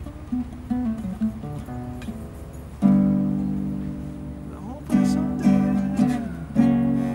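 Nylon-string classical acoustic guitar playing an instrumental blues passage: a run of single picked notes, then a loud chord about three seconds in left to ring, followed by several more struck chords.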